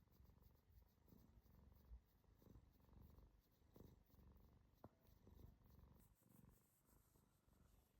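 Domestic cat purring faintly, a low rumble that pulses with each breath, with one short tick about five seconds in.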